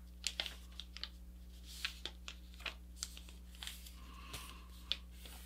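A sheet of paper rustling and crackling softly as it is folded and a crease is pressed down with the fingers: a string of short, scattered crinkles over a faint steady hum.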